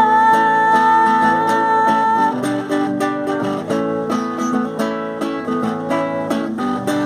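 A woman's sung note held steadily for about two seconds, the end of the word "chuva", over a guitar accompaniment that then carries on alone with rhythmic strummed and plucked chords.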